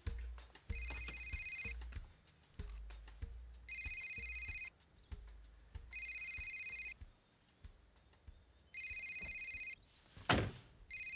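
Cell phone ringing with a trilling electronic ringtone: five rings of about a second each, two to three seconds apart. A brief loud noise sounds about ten seconds in, just before the last ring.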